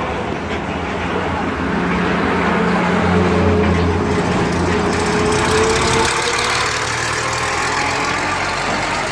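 Isher 767 combine harvester's engine running steadily, growing a little louder about two seconds in.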